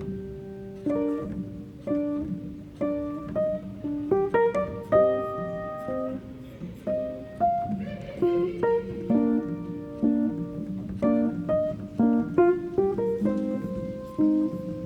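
Instrumental background music: a melody of plucked, guitar-like notes, each ringing and fading.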